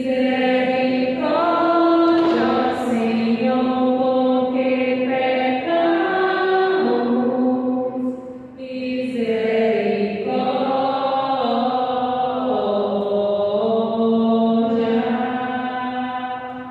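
A woman's solo voice chanting a verse of the responsorial psalm in Portuguese, holding long, steady notes in two long phrases with a brief breath about halfway.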